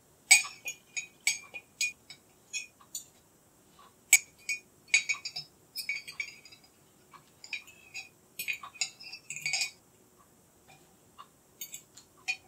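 A metal fork and knife clinking and tapping against a stainless steel jug. It comes as an irregular run of sharp strikes in several flurries, each with a short ring.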